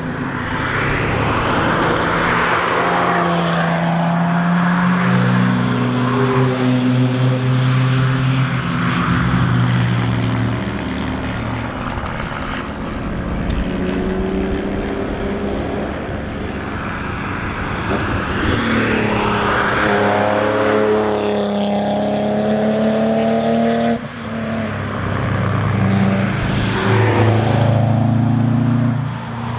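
Several cars accelerating hard past a race track, one after another. Each engine note climbs and steps at gear changes and swells and fades as the car goes by. The sound breaks off abruptly about 24 seconds in, then another car comes past.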